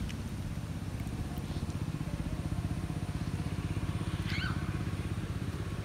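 A small engine running steadily with a low, fast, even chugging. A brief high chirp comes about four seconds in.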